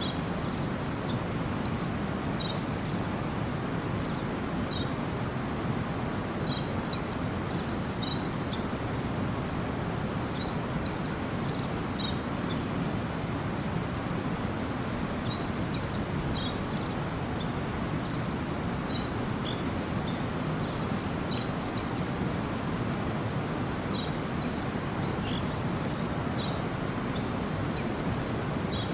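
A small stream babbling steadily, with birds chirping over it in short, high calls that come in scattered clusters with brief pauses between them.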